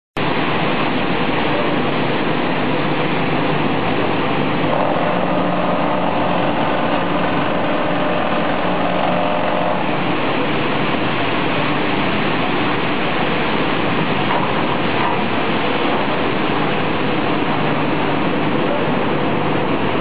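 Steady, loud running noise of an automatic packing scale line and plant machinery, with a higher-pitched whine joining for about five seconds near the middle.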